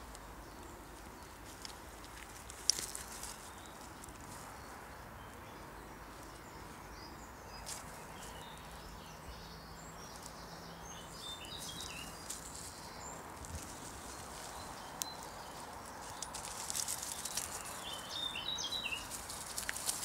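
Woodland birds chirping and singing in short phrases over a faint outdoor background, with rustling and crackling in dry leaves and undergrowth that picks up near the end. A single sharp click about three seconds in.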